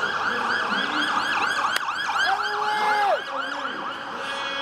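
Emergency-vehicle siren on a fast yelp, rising and falling several times a second. About halfway through, a steady horn-like tone cuts in over it for under a second.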